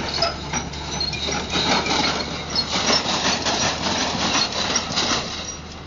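Tractor engine running as it pulls a Krone forage loader wagon away over a rough dirt track, with irregular knocks and rattles from the wagon bouncing over the bumps. It grows quieter near the end as the rig draws away.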